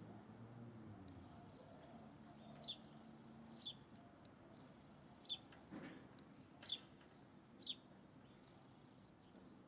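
A bird giving short, sharp, high chip calls, each sweeping quickly downward, five times at irregular intervals of about one to one and a half seconds, over a quiet background with a faint low hum.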